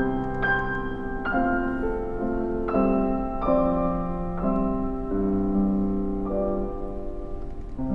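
Background music: slow, gentle piano, one note after another, with a new note starting about every half second to one second over held lower notes.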